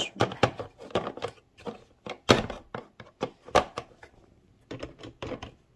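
Hard plastic Talon Fighter toy parts clicking and knocking against each other and the wooden tabletop as pieces are handled and pushed onto the base, in irregular sharp taps that thin out near the end.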